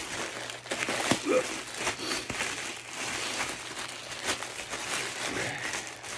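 Plastic packaging crinkling and rustling: a plastic mailer bag and the clear plastic bag around a jacket are pulled open and handled, with many sharp crackles throughout.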